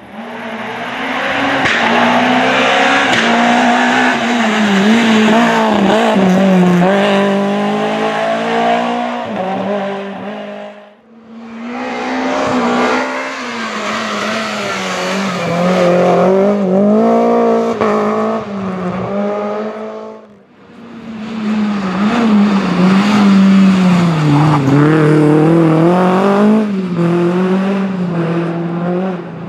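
Renault Clio Williams Group A rally cars' 2.0-litre 16-valve four-cylinder engines at full throttle, in three runs of about ten seconds each split by brief dips. In each run the engine note rises and falls as the cars shift gear and lift off.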